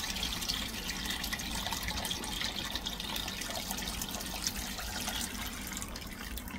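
Water poured in a steady stream from a jug into a large pot, splashing over chicken pieces and vegetables as the pot fills.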